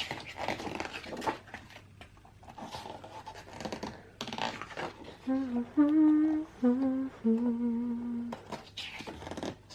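A woman humming a short tune of four held notes, starting about five seconds in, after some soft rustling handling sounds.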